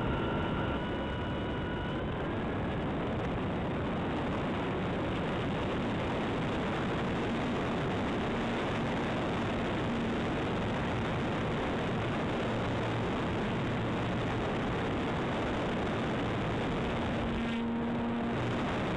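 Onboard sound of a radio-controlled Edge 540 model aeroplane in flight: its motor and propeller running under a steady rush of air over the camera. A thin whine fades out in the first two seconds, and near the end the noise briefly dips and a low hum comes through.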